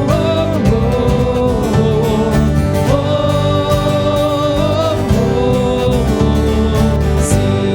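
Worship band playing a gospel song with acoustic guitar, a singer holding long notes over a steady beat.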